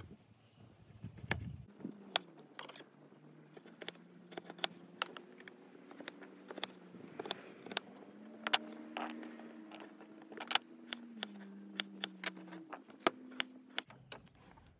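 Kitchen knife cutting a peeled potato on a wooden cutting board: irregular sharp taps as the blade strikes the board, about two a second. A faint low hum of steady tones runs underneath.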